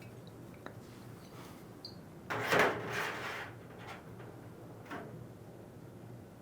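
Whiskey bottle and glass being handled on a table: a rough rubbing, scraping noise lasting about a second, followed by two light knocks.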